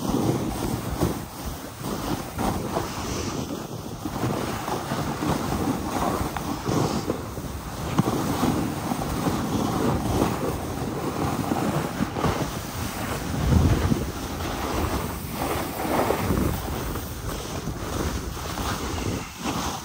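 Snowboard sliding and scraping over chopped-up, crusty snow, a continuous rushing noise that rises and falls through the turns, with wind buffeting the phone's microphone.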